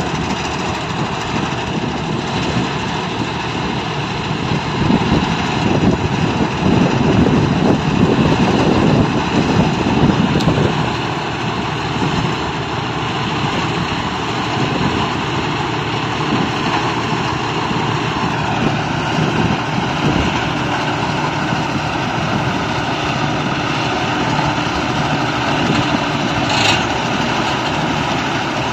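Combine harvester running as it cuts ripe paddy, a steady engine and threshing drone under load, swelling louder for a few seconds about a third of the way in.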